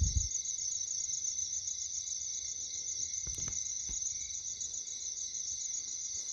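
Night chorus of crickets and other insects: a steady, high-pitched pulsing trill. A few soft low thumps at the start and again about three and a half seconds in.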